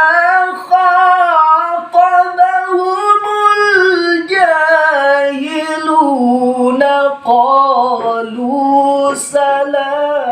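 A male Quran reciter chanting unaccompanied in a high, melodious voice. He draws out long ornamented melismas whose pitch climbs over the first few seconds and then sinks lower, with one sharp hissing consonant about nine seconds in.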